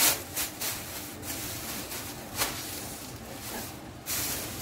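Plastic shopping bag and packaging rustling and crinkling as groceries are handled and unpacked: several short rustles, then a longer one near the end.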